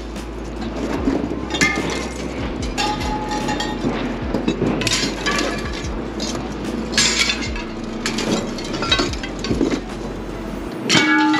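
Rusty scrap metal being pulled from a car's cargo area and thrown onto a scrap pile: repeated metal clanks and clinks, some ringing, every second or two. A steady low hum runs underneath and stops near the end.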